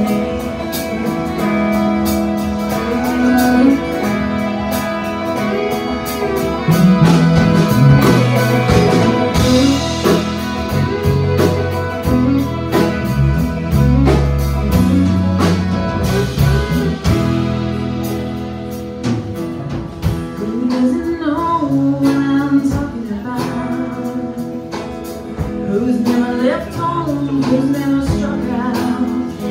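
A live country band playing: fiddle, acoustic guitar and electric guitar.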